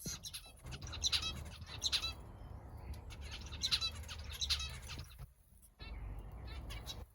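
Zebra finches chirping in short, buzzy calls, four louder ones and several fainter, around a nest where chicks are being fed, over a low steady rumble.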